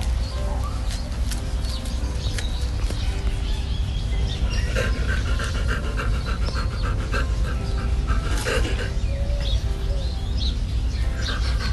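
Crested porcupine eating leafy greens and carrot close up, giving a run of sharp crunching and chewing clicks over a steady low rumble. Short bird chirps come and go around it.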